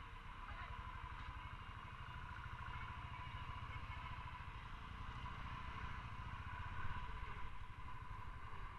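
Motorcycle engine running at low speed as the bike pulls away and rolls off, a steady fast low beat of engine pulses.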